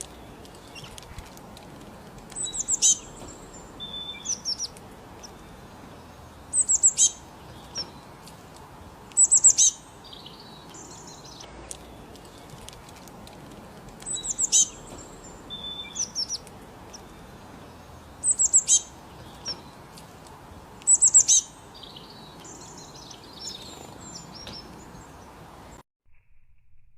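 A bird singing short, high, repeated chirping phrases, each a quick run of notes, recurring every two to four seconds over a steady background hiss. The sound cuts off suddenly near the end.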